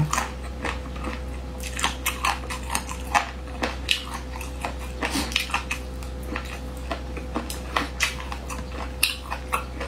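Close-up chewing and biting of spicy braised duck feet: irregular mouth clicks and smacks, several a second, over a faint steady electrical hum.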